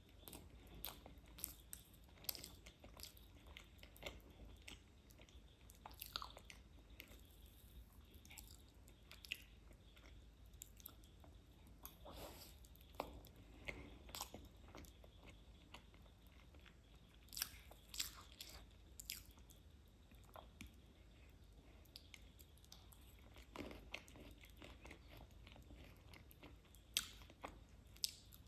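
Close-miked chewing and biting, with soft irregular crunches and wet mouth clicks: a person eating cake with crunchy Chocos cereal.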